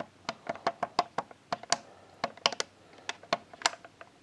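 Rapid, irregular clicking of the plastic setting buttons on a 1980s KMC 500 alarm clock, pressed over and over, about five clicks a second. The buttons are worn and have to be held just right to register.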